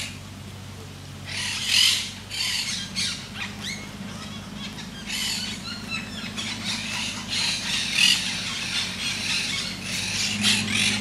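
Monk parakeets squawking around their communal stick nest: harsh, chattering calls coming in repeated bursts. A low steady hum runs underneath.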